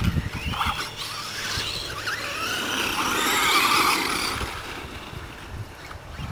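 Radio-controlled monster trucks' motors whining, rising and falling in pitch as they accelerate and slow on the dirt track. The whine is loudest about three seconds in and fades near the end.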